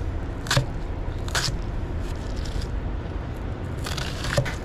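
Chef's knife dicing a white onion, each stroke crunching through and knocking on a plastic cutting board, a few slow cuts about a second apart, over a steady low rumble.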